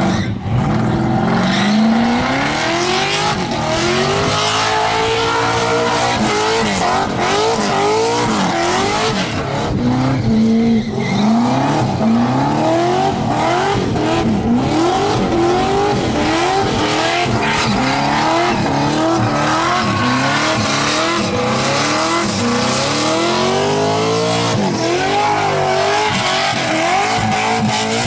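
Supercharged V8 of a Holden VK Commodore doing a burnout: the engine is held at high revs, its pitch rising and falling over and over, about once a second through the middle, while the rear tyres spin and squeal against the pavement.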